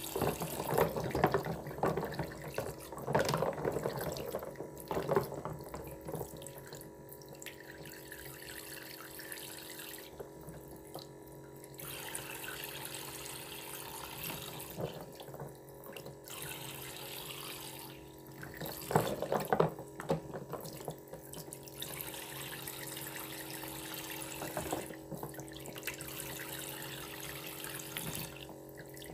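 Toy kitchen sink's faucet running a thin stream of water into the plastic basin, with a steady hum underneath. Plastic toy fruit pieces are splashed and knocked about in the water, most busily in the first few seconds and again about two-thirds of the way through.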